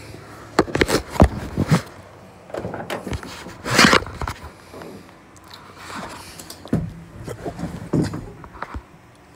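Chevy K20 pickup's driver door and cab as the driver gets in: the handle and latch click, then a string of knocks and thumps, with a loud scrape about four seconds in as he climbs into the seat.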